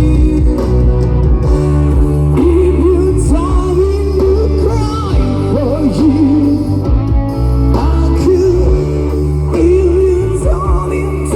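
Live band playing a slow song: steady bass and drums under a sliding, bending lead melody.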